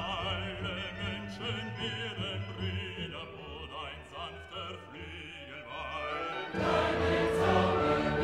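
Background music: an operatic voice singing with wide vibrato over orchestral accompaniment, swelling about six and a half seconds in into a louder, fuller choral and orchestral passage.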